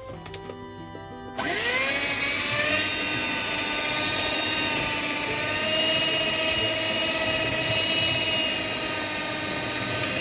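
Electric hand mixer switched on about a second and a half in, its motor whine rising as it speeds up and then running steadily while the beaters whisk flour and water into a batter.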